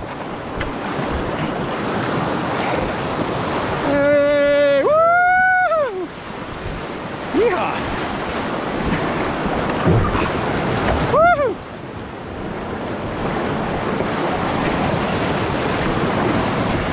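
Whitewater rapids rushing steadily around an inflatable kayak, with wind buffeting the microphone. A voice calls out twice: a held note that rises and falls in pitch about four seconds in, and a shorter rising-and-falling call about eleven seconds in.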